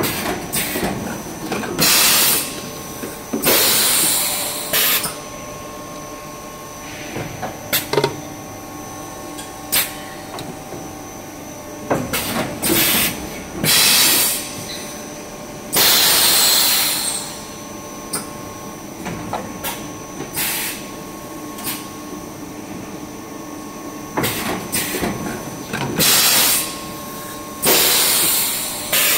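Tongda HTSII-5L double-station, three-head extrusion blow moulding machine cycling as it makes plastic bottles: repeated loud hisses of compressed air, each about a second long and a few seconds apart, with sharp clicks and knocks between them over a steady hum from the hydraulic system.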